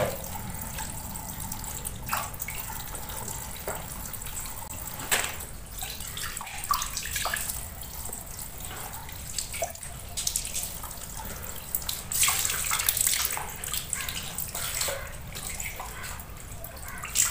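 A thin stream of water running from a wall tap and splashing as raw chicken pieces are washed by hand under it, with louder splashes now and then.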